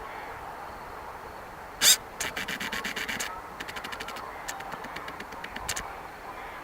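Handling noise on the camera's built-in microphone: a sharp knock about two seconds in, then a quick run of clicks for about a second and a few scattered clicks, over faint steady background noise.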